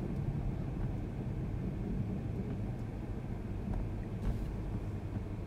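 Low, steady rumble of a car's engine and road noise heard from inside the cabin, with a few faint clicks.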